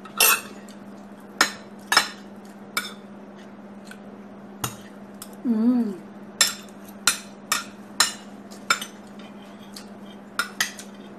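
Metal spoon and fork clinking and scraping on a plate of fried rice while eating: about a dozen sharp, irregularly spaced clinks over a steady low hum.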